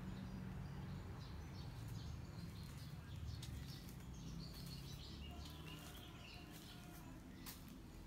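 Low, steady background rumble with faint, scattered small bird chirps.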